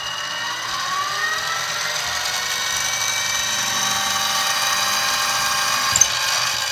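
Harbor Freight mini mill spindle running up to speed: a whine that rises in pitch over the first couple of seconds, then runs steadily at high speed. A single sharp click about six seconds in.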